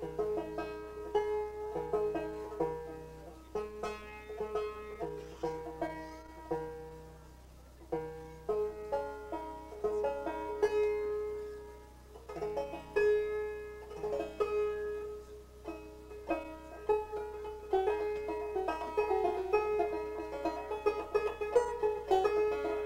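Solo banjo played in a banjo contest: a fast old-time fiddle tune, quick plucked melody notes over a repeating bass pattern.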